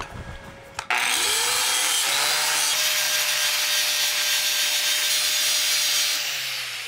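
Angle grinder with a cutoff wheel switched on about a second in, its motor whine rising as it spins up, then cutting steadily into a pipe's root bevel to rip open the gap. Near the end it is switched off, and the whine falls as the wheel winds down.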